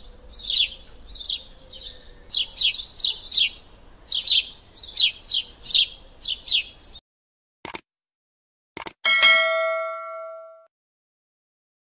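A small bird chirping quickly and repeatedly, until the sound cuts off about seven seconds in. Then two clicks and a ringing bell ding that fades over a second or so: the sound effect of a YouTube subscribe-button animation.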